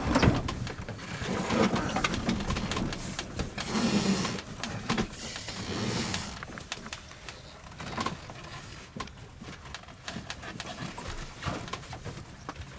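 Deck sounds on a sailing yacht as a sheet is worked and made fast during a tack: irregular clicking and rattling of lines and winch, with gusts of wind on the microphone in the first half. It is quieter near the end.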